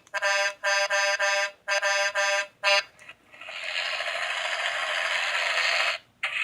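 Small electronic sound-book speaker playing a car horn beeping in a quick run of stop-start bursts for about three seconds, then a steady rushing noise for about three seconds. The sound is thin and tinny, with no bass.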